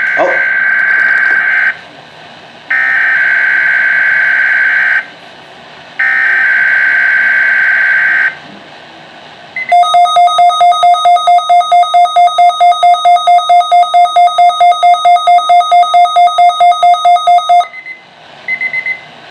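A weather radio receiving the weekly alert test. Three harsh digital data bursts of about two seconds each come first, the SAME alert header. After that an alert alarm tone beeps about four times a second for about eight seconds, and a few short data chirps follow near the end.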